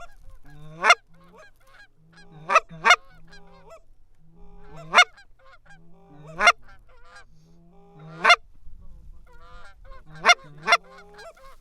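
Goose honking: a low note that breaks up into a loud, high honk, about eight times, some in quick pairs, with softer clucks and murmurs in between.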